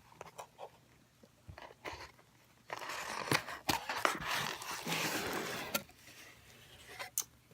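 Cardboard box being opened by hand: scattered taps and scrapes, then about three seconds of dense rustling and crinkling, then a few more clicks.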